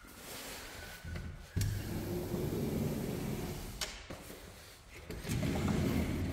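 A sliding glass door rolling along its track. Two long slides, the first starting suddenly a little over a second in and the second about a second after it ends, with a few sharp clicks.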